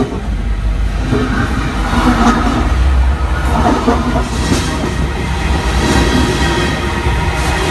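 Train wheels rolling over freshly ground rail: a steady rumble with a hum of several steady tones running through it, and a few light clicks.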